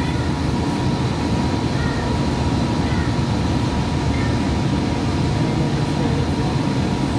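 Cabin noise of a Hudson-Bergen Light Rail car (Kinki Sharyo light rail vehicle) running at speed: a steady rumble of wheels on rails and running gear, with a faint steady high whine.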